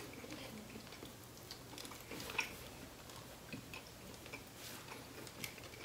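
Faint chewing and mouth sounds, with scattered small clicks and one slightly louder tick about halfway through.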